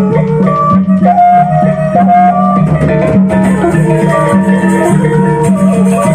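Traditional Indonesian gamelan ensemble playing a gending. A bamboo suling flute carries a sustained melody over drums and gongs.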